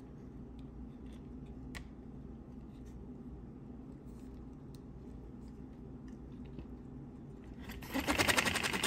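Handmade paper V-twin air engine starting on compressed air near the end, running with a fast, even run of ticks. Before that, only faint handling clicks.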